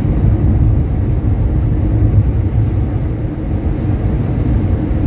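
1961 Rover P4 100's straight-six engine and road noise while driving, heard from inside the cabin as a steady low rumble.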